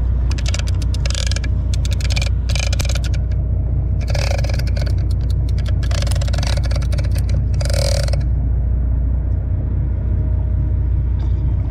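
Big-game conventional reel being cranked hard in repeated runs of turns, its gears whirring and clicking in about half a dozen short bursts as a hooked yellowfin tuna is reeled toward the boat. A steady low rumble runs underneath.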